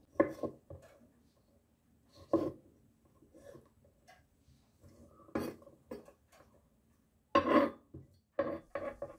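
Serrated kitchen knife slicing black olives on a wooden cutting board: the blade knocks on the wood in scattered, irregular taps, the loudest about three-quarters of the way through.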